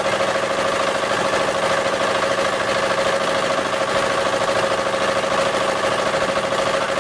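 A wooden river boat's engine running steadily while under way, heard on board, with a fast, even chugging and a steady hum.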